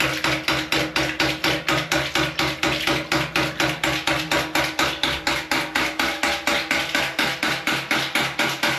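Hydraulic ram pump's waste valve slamming shut over and over in a fast, even rhythm of about four to five clacks a second, water spurting out with each cycle: the water-hammer cycle that drives the pump.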